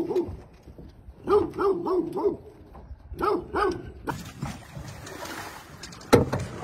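Pit bull barking in quick runs of short barks, three or four at a time. Then a rough scuffing noise, and a sharp knock near the end.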